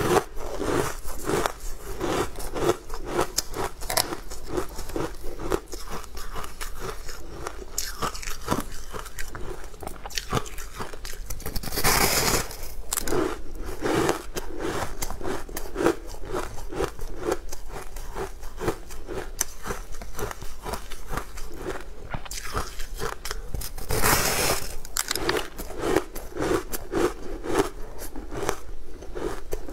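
Close-miked eating: crunchy bites into a purple coated treat dipped in green powder, then steady rhythmic chewing, about two to three chews a second. Two louder crunching bites come about 12 and 24 seconds in.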